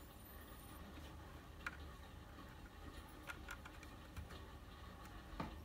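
A few faint, scattered clicks and taps as an HDMI cable plug is fitted into the back of a set-top box and the box is handled.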